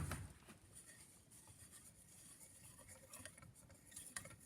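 Near silence with faint rubbing and a few light clicks of small phonograph parts being handled, the clicks coming more often near the end.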